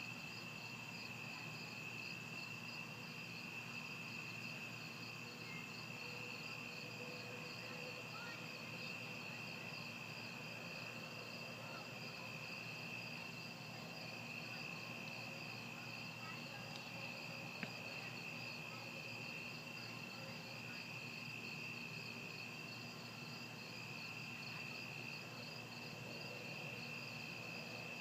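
Steady chorus of night insects, a continuous high pulsing trill over a faint hiss, with a single small click about two-thirds of the way through. No thunder is heard.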